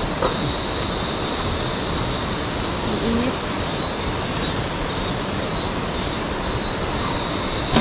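Steady rushing of water, with faint high chirps repeating every second or so.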